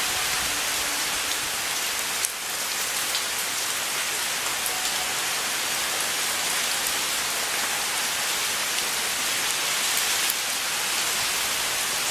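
Steady, even hiss with many faint scattered ticks, like rain falling, and one louder knock about two seconds in.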